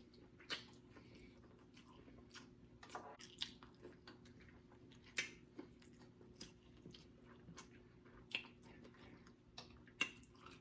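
Faint close-up chewing of boiled pork neck bones, with scattered short wet clicks from the mouth as the meat is bitten and worked off the bone.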